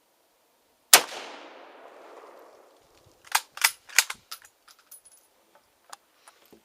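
A single rifle shot about a second in, echoing and dying away over about a second and a half. It is followed by three sharp metallic clacks in quick succession and then a few lighter clicks, as the gun's action is worked.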